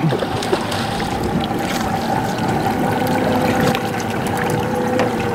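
Fishing boat's motor running steadily at trolling speed, with water sloshing and splashing against the hull and around the line.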